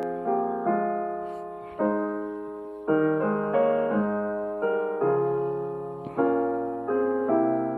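Slow, gentle piano music: soft chords and single notes struck about once a second, each left to ring and fade.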